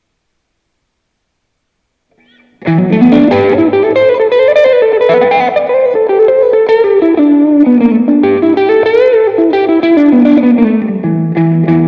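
Fender Stratocaster Elite electric guitar played through an amp: silence, then about two and a half seconds in a melodic line of sustained notes, some bent in pitch, played loudly.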